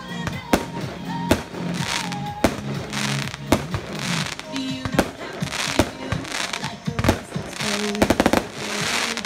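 Aerial fireworks shells bursting with sharp bangs about once a second, several followed by a hissing crackle of glitter stars. A quick run of about six cracks comes near the end. Music plays steadily underneath.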